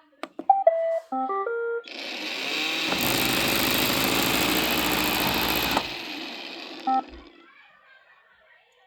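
Roomba robot vacuum plays a short tune of stepped beeps in response to its dock button, then its motors run steadily for about four seconds, followed by one short beep.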